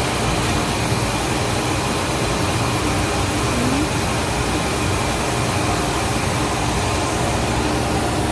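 Steady rushing air noise over a constant low engine hum, typical of blowers and an idling car at an automatic car wash.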